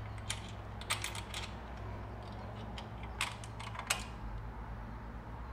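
Scattered metal clicks and clinks of bolt, nut and washer hardware being fitted by hand at the exhaust link-pipe bracket, a handful of sharp ticks at uneven intervals over a steady low hum.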